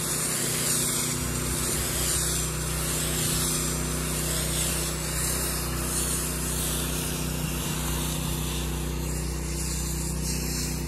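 Pressure washer running steadily while its J-rod wand sprays pre-treatment chemical onto paver stones: a steady machine hum under a continuous spray hiss that swells and fades as the wand sweeps.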